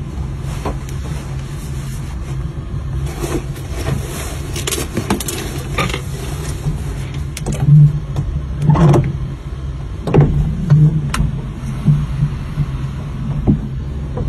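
Steady low hum of machinery inside the OceanGate Titan submersible's cabin, with scattered knocks, scrapes and handling bumps that come louder and more often from about eight seconds in.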